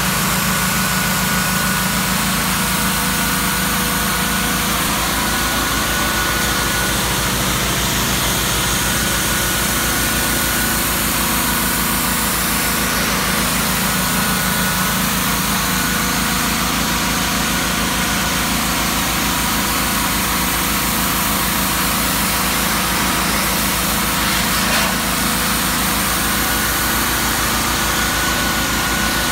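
Pressure washer running steadily, its pump humming under the hiss of the water jet blasting against the log wall to strip the old finish.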